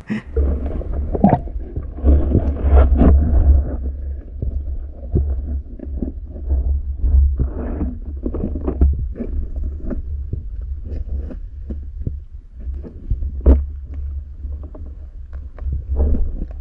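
Muffled underwater sound picked up through an action camera's waterproof housing: a steady low rumble with irregular soft knocks and clicks from the diver's own movement through the water.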